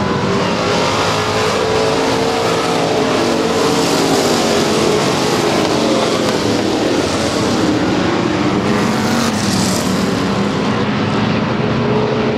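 Several dirt-track race cars running laps together, a steady loud blend of engines whose pitch rises and falls as they pass.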